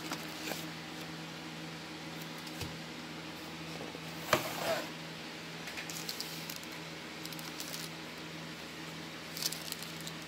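Packaging being handled: a black non-woven fabric pouch rustling and crinkling in the hand, with scattered light clicks and one louder crinkle about four seconds in, over a steady low hum.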